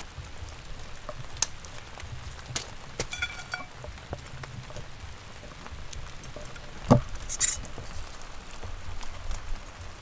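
Metal tent poles and pegs being handled on a pebble shore: scattered small clicks and taps, a brief metallic ring a few seconds in, and one sharper knock about seven seconds in, over a low steady rumble.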